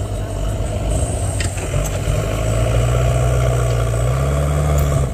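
JCB 3DX backhoe loader's diesel engine running close by as the machine drives to the mud pile with its front bucket. The engine note steps up about two seconds in, rises again near the end, then drops back.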